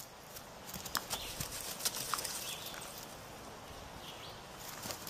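A young goat's hooves tapping and scuffing on dry dirt as it hops about, scattered irregular taps, with a few brief high chirps.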